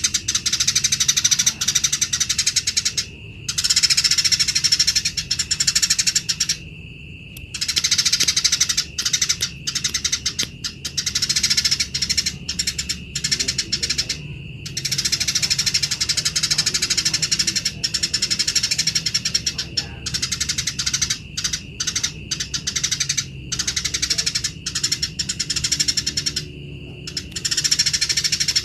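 Eurasian tree sparrows chattering harshly and rapidly, dense runs of chirps broken by brief pauses: the excited, quarrelsome call of sparrows fighting.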